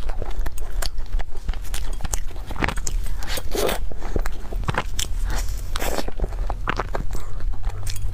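Eating a chocolate-filled cream puff: repeated bites into the crumbly pastry shell and chewing, as irregular short crunches and mouth sounds over a steady low hum.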